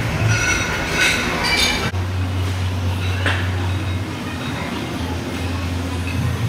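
Iron weight plates clinking and ringing on a loaded barbell during squats, several short metallic clinks over a steady low hum of gym background noise. About two seconds in the hum turns steadier, and there is one more clink a little later.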